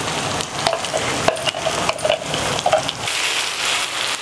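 Onion-tomato gravy frying in a stainless steel pan, sizzling steadily, with a few sharp clicks of a spatula against the pan. About three seconds in the sizzle grows louder as the freshly added chili-tamarind paste is stirred through.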